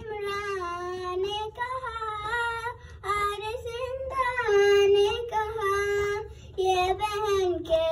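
A young girl's voice chanting a noha, the Shia mourning lament, into a microphone: one voice, long drawn-out notes that bend up and down between short breaths.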